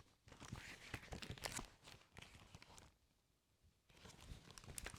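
Faint paper rustling and light knocks from a picture book being handled as a page is turned, with a second of silence near the middle.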